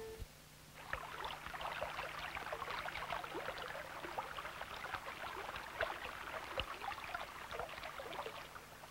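Faint babbling of a brook: a dense, irregular patter of tiny gurgles over a steady low hum.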